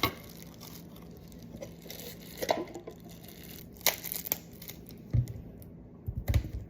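Crinkling and rustling of something being handled, broken by sharp clicks, with a few soft knocks about five to six seconds in.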